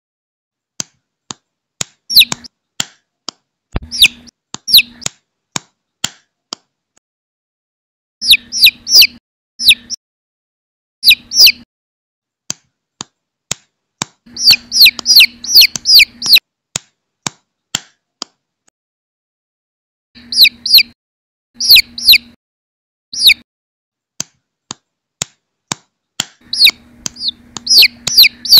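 Baby chick peeping: bursts of short, high peeps, each falling in pitch, several to a burst, with silent gaps between bursts. Sharp clicks are scattered among them.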